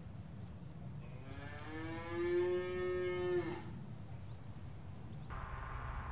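A cow mooing once, one long call that rises slightly at the start and is then held for about two seconds before it stops.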